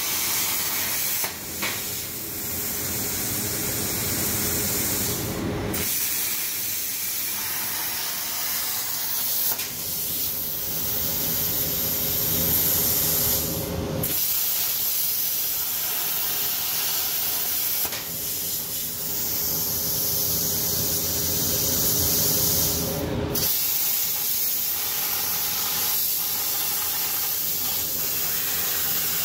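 Powermax 105 air plasma torch on a Dynatorch XLE CNC table cutting steel plate: a loud, steady hiss of arc and air. The hiss cuts out briefly three times as the torch finishes one cut and starts the next.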